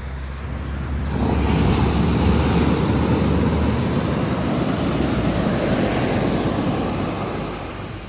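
Sea waves on the shore: a wave surges in about a second in, washes loudly for several seconds, and ebbs away near the end.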